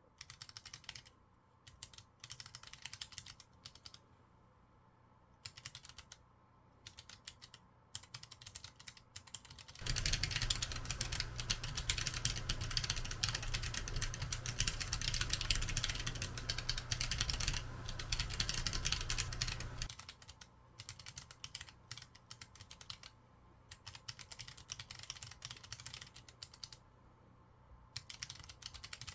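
Typing on a handwired keyboard with Kailh PG1316S ultra-low-profile notebook switches (60 gf), whose build gives them a distinctive operating noise. Separate keystrokes at first, fast continuous typing from about ten to twenty seconds in, then separate keystrokes again.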